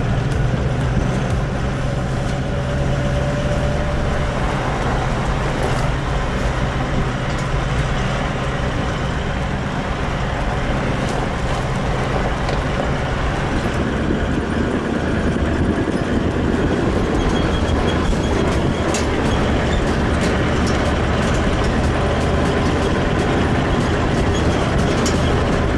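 Four-wheel-drive vehicle driving along a dirt track: a steady engine drone under continuous road and wind noise, heard from a microphone on the outside of the vehicle.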